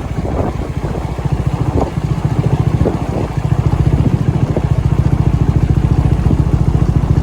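Royal Enfield Himalayan 411's single-cylinder engine running through its exhaust as the bike rides off: a steady rapid low pulse that grows a little louder about three and a half seconds in.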